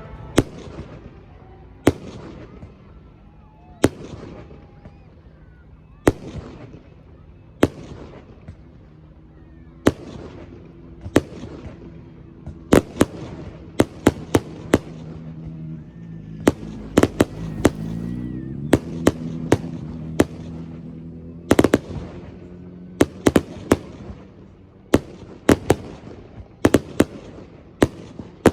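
Aerial fireworks bursting: a long run of sharp, echoing bangs at uneven spacing, single at first and coming in quick clusters of two to four from about the middle on.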